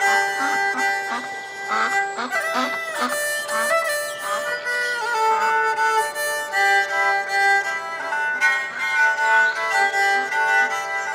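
Background music of long held melodic notes over a soft, steady beat. Ducks quack a few times about two to three seconds in.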